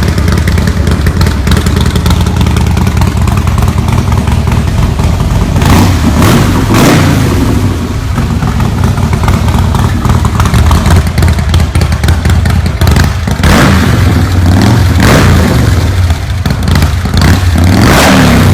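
Harley-Davidson Breakout's V-twin engine idling loudly through its exhaust, with several quick throttle blips: two about six seconds in and a few more in the second half.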